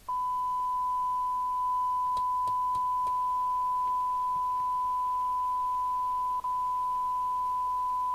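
A steady 1 kHz test tone from the CB radio's loudspeaker, switching on abruptly as the squelch opens on the signal generator's test signal, with one brief dropout about six and a half seconds in as the squelch chatters; the engineer suspects a dirty squelch preset.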